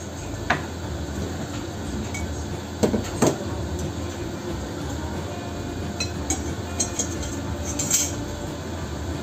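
Scattered light metal clinks and knocks as a steel bearing and a square hollow steel tube are handled on a workbench, with two sharper knocks around three seconds in.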